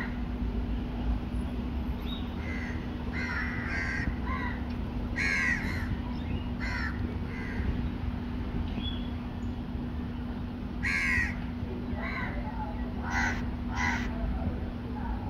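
Crows cawing, a dozen or so short calls scattered through, some in quick succession, over a steady low hum.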